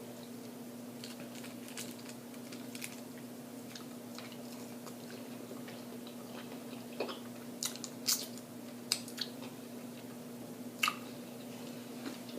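A person chewing food with the mouth open: quiet chewing with scattered wet smacks and clicks, most of them in the second half, over a steady low hum.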